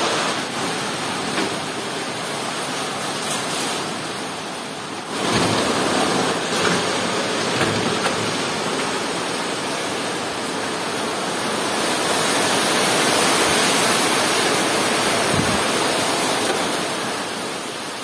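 Heavy rain falling steadily on trees and broad banana leaves, a dense, even hiss that grows louder about five seconds in.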